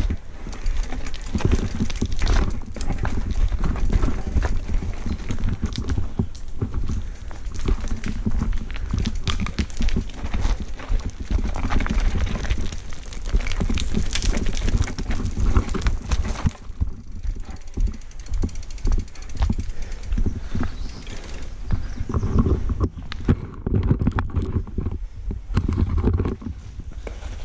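Santa Cruz Blur cross-country mountain bike descending a rocky trail: tyres knocking and crunching over rocks and loose stones, the bike rattling, over a steady low rumble of bumps and wind on the body-mounted camera. The clatter eases for a few seconds past the middle, then picks up again.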